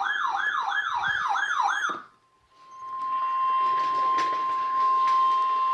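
Emergency alert tones from a weather-radio broadcast. First comes a warbling, siren-like alert tone sweeping up and down about two and a half times a second. It cuts off after about two seconds, and after a short gap the steady single-pitch NOAA Weather Radio warning alarm tone starts, the signal that a new warning (here a tornado warning) is about to be read.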